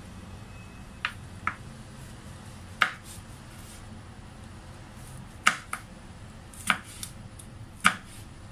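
Chef's knife slicing a red chili pepper on a wooden cutting board: sharp knocks of the blade on the board, about eight at uneven intervals.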